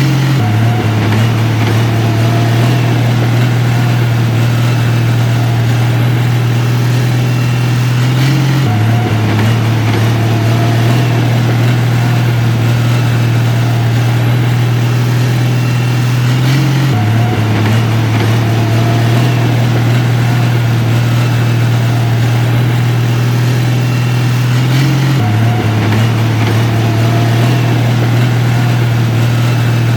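Heavy diesel engine of earthmoving equipment running steadily with a deep low hum. The pitch shifts slightly in small steps about every eight seconds.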